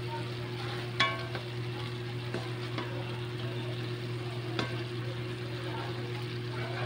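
Chicken adobo sizzling as its sauce reduces in a metal pan, stirred with a wooden spatula that scrapes and knocks against the pan, with one sharp ringing knock about a second in and a few lighter ones after. A steady low hum runs underneath.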